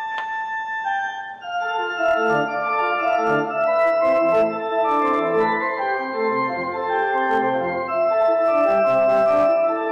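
Church organ played on manuals and pedals: sustained chords that move every half second or so. Low pedal bass notes come in about a second and a half in.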